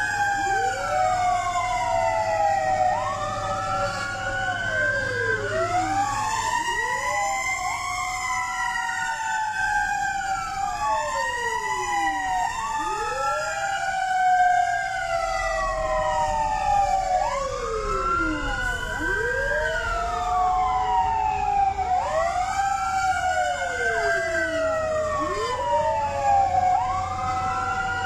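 Several fire truck sirens wailing together, each rising and falling every few seconds out of step with the others, over a steady low rumble.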